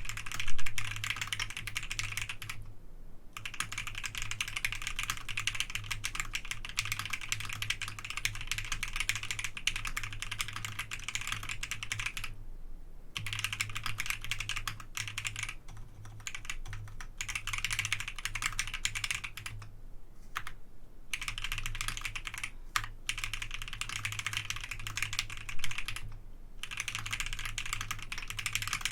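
Typing on a QWERTYKEYS QK65 mechanical keyboard with Akko Jelly Black linear switches, an FR4 plate and GMK keycaps: a fast, continuous run of keystrokes broken by a few short pauses, with one louder keystroke about a second in.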